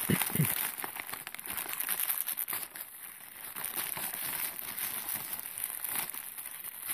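Plastic poly mailer and clear plastic wrapping crinkling and rustling as a plastic-wrapped bundle of gloves is pulled out of the mailer. It makes a dense, continuous run of small crackles.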